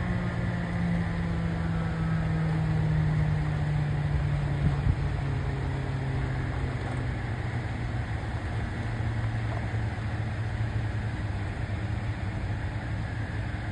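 Federal Signal 2001-SRN rotating outdoor warning siren winding down after its test, its low tone sliding slowly down in pitch as the rotor coasts to a stop.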